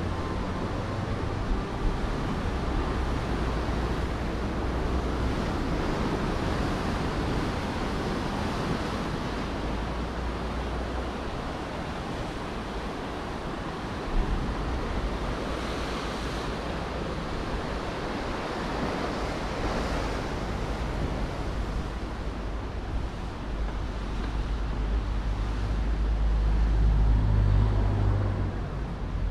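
Waves washing on the shore, a steady rushing noise, with wind buffeting the microphone. A low rumble swells near the end.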